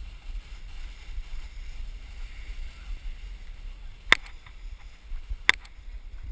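Snowboard sliding over packed snow with a faint hiss, under wind rumbling on the camera's microphone. Two sharp knocks about four and five and a half seconds in.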